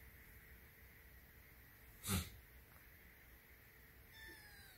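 A black kitten gives a faint, high mew near the end. About two seconds in there is one short, sharp burst of noise, the loudest thing here.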